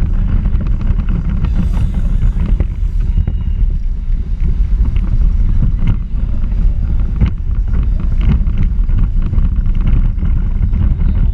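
Low rumble of wind buffeting and vibration picked up by a camera mounted on a small electric Power Racing Series car driving over asphalt, with scattered knocks and rattles from the car.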